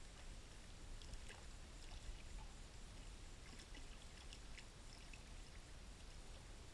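Faint water sounds from a kayak: soft lapping and small scattered splashes at the surface, over a steady low rumble of wind on the microphone.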